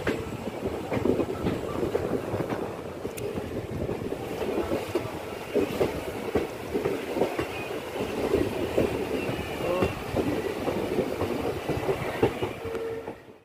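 Passenger train running, its wheels clattering over the rail joints, heard from inside a carriage at an open window. A brief steady whine rises above the rumble near the end.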